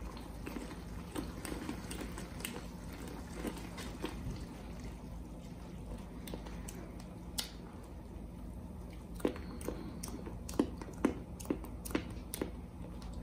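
Silicone spatula stirring thick toffee sauce in a stainless steel saucepan: soft wet squishing with scattered light taps of the spatula against the pan, more of them near the end.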